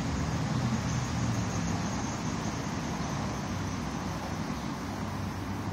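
Steady rushing background noise with a faint low hum underneath, no distinct events.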